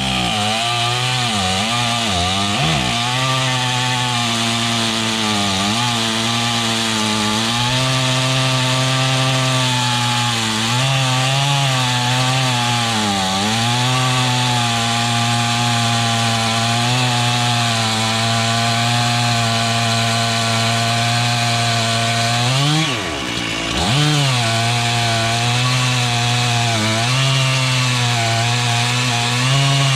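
Stihl two-stroke chainsaw cutting through a cherry stump at high revs under load. The engine speed dips briefly several times as the chain bites into the wood, with a deeper drop about three-quarters of the way through before it picks up again.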